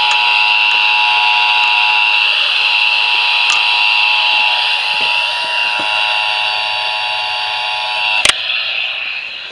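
Emergency Alert System attention signal: a steady two-tone alarm held over a hiss, cutting off with a click about eight seconds in.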